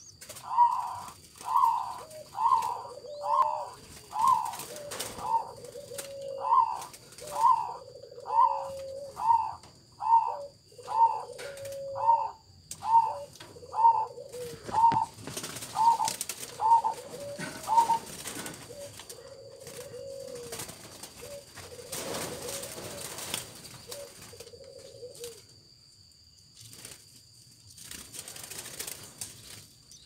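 Zebra dove cooing: a long run of short, evenly spaced notes about one a second, each followed by a lower drawn-out note, stopping after about eighteen seconds. The lower notes go on alone for several seconds more, with brief rustling and wing flutter around the middle.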